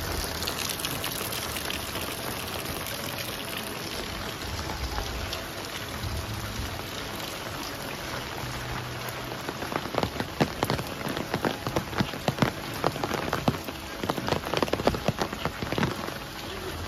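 Steady rain falling, with a run of loud, sharp drop taps close by from about ten seconds in until near the end.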